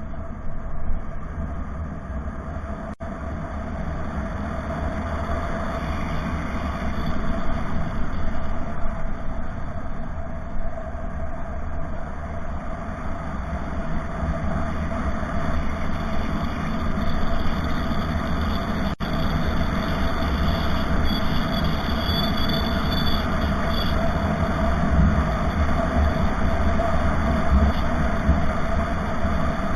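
A motor vehicle running steadily on the road, its engine and road noise a continuous low rumble with a steady hum.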